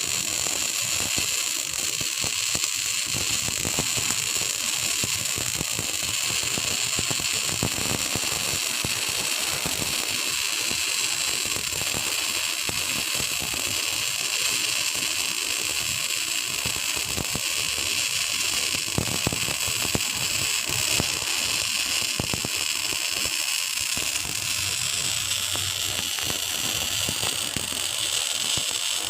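Electric arc welding: a welding arc crackling and fizzing steadily with a dense run of fine clicks, from a welding machine being tested after long disuse.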